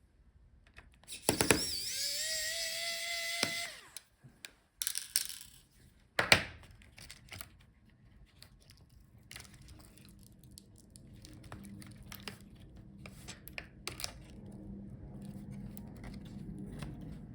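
Electric screwdriver spinning up and running for about two seconds with a steady whine while backing out a laptop motherboard screw. It is followed by scattered small clicks and knocks of screws and parts being handled.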